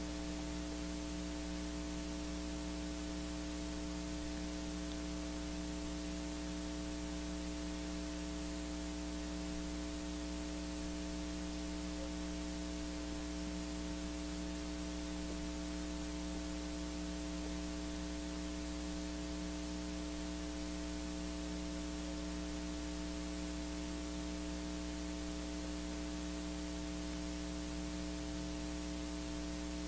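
Steady electrical mains hum with a layer of hiss from the recording setup: several fixed tones and no other sounds standing out.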